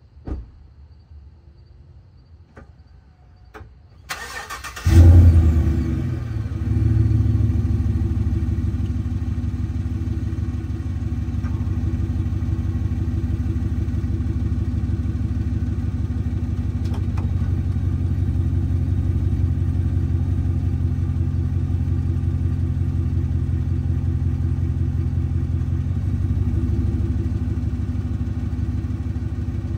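A 2017 Chevrolet Silverado 1500 pickup's engine is cranked about four seconds in and catches with a brief flare of revs. It then settles into a steady idle.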